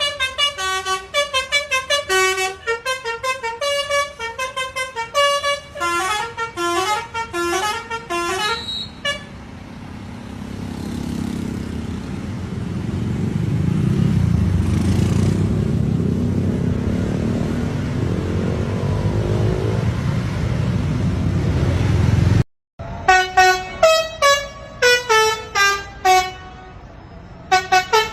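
Bus-mounted Basuri telolet horn playing quick melodic tunes of short notes at several pitches. In the middle, the horn stops and a heavy vehicle's low engine rumble builds and holds for about thirteen seconds. After a sudden cut, the horn tune plays again.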